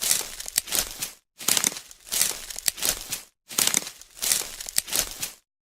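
Leaves rustling and crackling in three bursts of about two seconds each, with short silences between.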